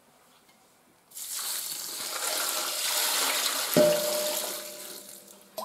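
Cold water poured from a large glass jar into a stainless-steel pot of elderflowers, splashing steadily from about a second in and tapering off near the end. A short knock with a brief ringing tone about four seconds in.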